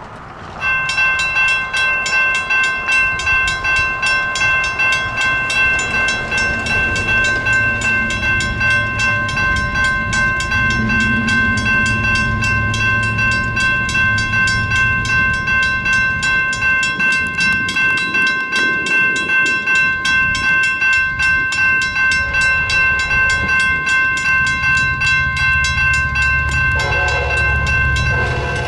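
Electronic railroad crossing bell on a new replacement signal, ringing rapidly at about three dings a second from about a second in. A low train rumble builds under it, and near the end the approaching Amtrak locomotive's horn sounds.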